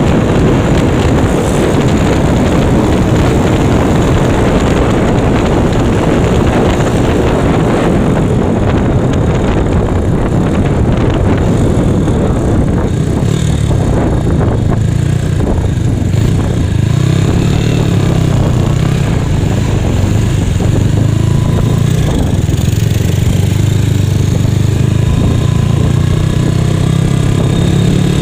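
Honda Megapro single-cylinder four-stroke engine in a Yamaha Mio scooter, heard from the rider's seat while riding, mixed with rushing wind and road noise. About halfway through the rush dies down and the engine's low, steady note comes to the fore.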